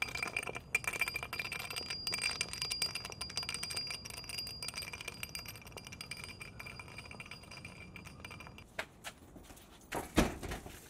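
A large axe dragged across asphalt, its metal head scraping and clattering in many small ticks over a steady high ring that stops a couple of seconds before the end. A sharp knock sounds near the end.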